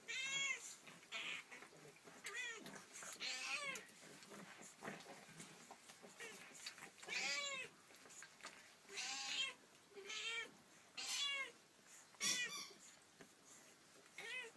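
Siamese-type cat meowing repeatedly: about ten short meows, each rising then falling in pitch, roughly a second apart with a longer pause around the middle.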